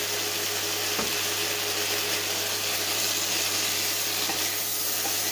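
Green beans, carrots and onion sizzling in a hot nonstick pan while being stirred with a wooden spatula: a steady frying hiss, with one light click about a second in.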